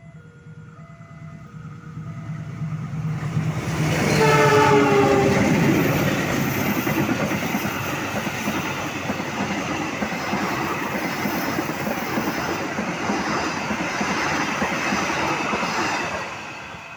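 A level-crossing alarm pulses in two alternating tones as a train approaches. About four seconds in, the train's horn sounds loudly with its pitch dropping as it passes. The steady rumble and clatter of the passing train follows and dies away near the end.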